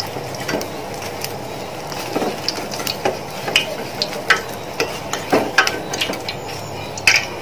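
Samosas deep-frying in hot oil in a steel pan: a steady sizzle, with scattered short clicks and scrapes as a wire-mesh spider strainer lifts and turns them against the pan.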